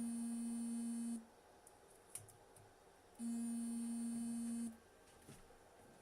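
Two long electronic beeps from an equipment beeper, each a steady tone lasting about a second and a half, the second about three and a half seconds after the first.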